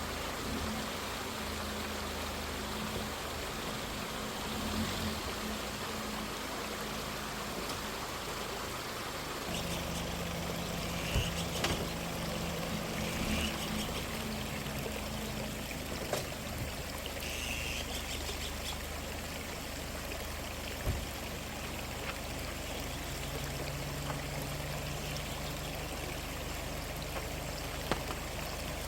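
Stream water flowing steadily over rocks, with a low steady hum underneath that changes pitch a few times and a few short knocks.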